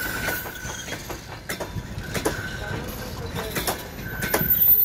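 Passenger coach wheels rolling slowly over the track, clacking irregularly over rail joints and points. A thin wheel squeal comes and goes, and the knocking is loudest near the end.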